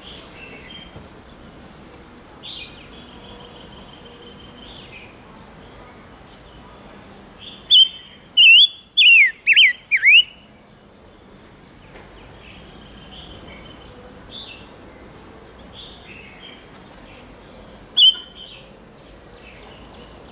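Silver-eared mesia calling: repeated short chirps, then a loud run of five quick falling whistled notes about eight seconds in, and one more loud note near the end.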